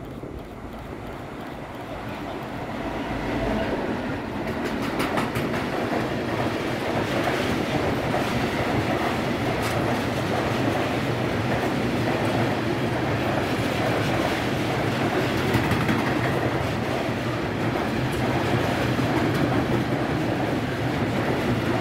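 Voith Maxima 40CC six-axle diesel-hydraulic locomotive approaching and passing, growing louder over the first few seconds. It is followed by a long train of loaded Eas open freight wagons rolling past steadily, with the wheels clicking over rail joints.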